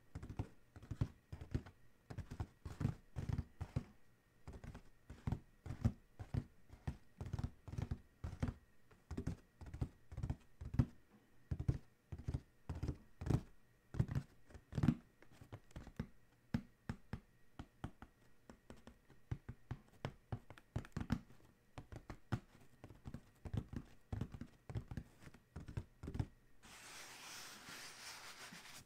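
Fingertips tapping quickly and unevenly on the lid of an Adidas cardboard shoebox, a dense run of dull knocks. Near the end the tapping stops and the fingers scratch across the cardboard with a steady hiss for about two seconds.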